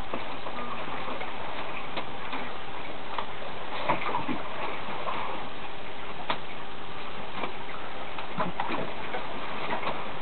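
Steady rush of sea water along a yacht's hull, heard from inside the cabin, with irregular creaks, ticks and knocks from the boat working in the waves; the sharpest knock comes about four seconds in.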